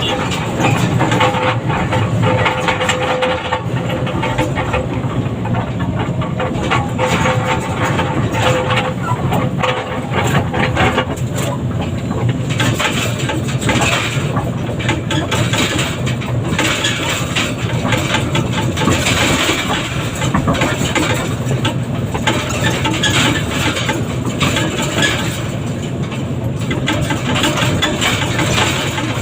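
Heavy diesel machinery, the engines of an excavator and a loaded log truck, running steadily.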